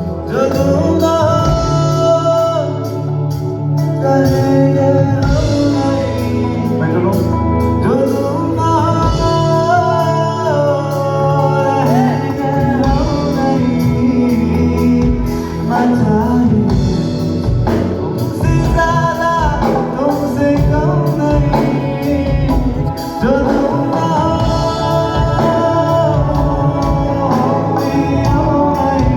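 Music with a singing voice over a steady beat and bass.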